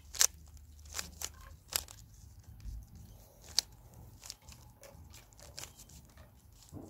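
Plastic clicks and scrapes of a Rubik's cube's layers being twisted, coming irregularly, the loudest near the start.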